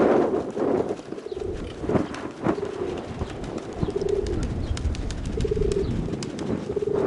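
Domestic pigeons cooing in short phrases repeated every second or two, with wind rumbling on the microphone.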